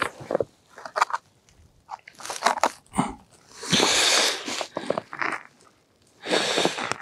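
Snow crunching on the ice as a pike tip-up is reset over its hole, with the man kneeling and then getting to his feet. It comes in several separate crunching bursts with short pauses between.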